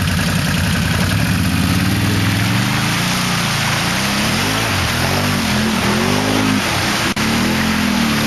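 ATV engine revving in repeated surges, its pitch rising and falling, as the machine churns through deep mud and water, over a steady rush of spinning tyres and splashing.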